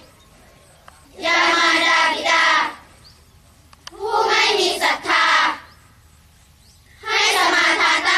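A large group of children chanting a Buddhist sutta in unison. Three phrases, each about a second and a half long, with short pauses between them.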